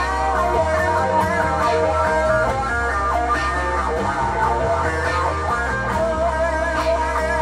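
Instrumental rock: a Stratocaster-style electric guitar played through an amplifier over a looped backing with a steady bass line.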